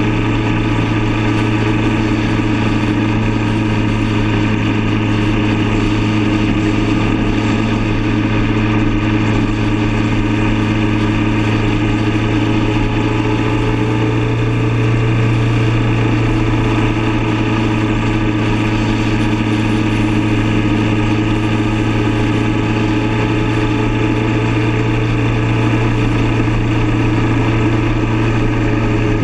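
Motorcycle engine running at a steady cruise, a constant low drone that does not change pitch, with wind rushing over the microphone.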